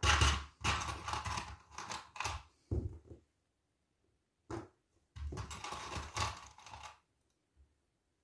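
Fabric layers rustling as they are handled and smoothed, while plastic sewing clips are pushed onto the edges. Two stretches of rustling and clicking, about three seconds and then two seconds long, with a single short click between them.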